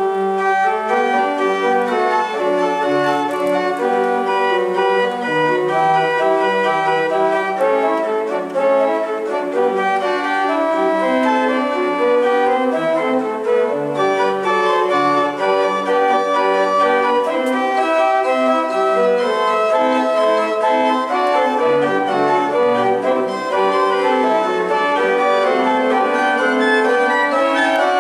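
Two-manual organ played briskly: several voices move at once in quick, short notes, over lower notes that come and go.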